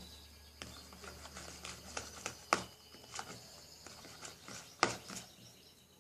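Slime made with homemade shaving foam being squeezed and stretched by hand, giving irregular soft clicks and pops, with two louder pops about two and a half and five seconds in.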